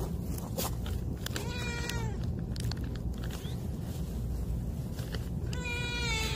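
Two long meows from stray cats, one about a second and a half in and another near the end, each dropping slightly in pitch as it ends, over a steady low rumble: the cats are begging for treats.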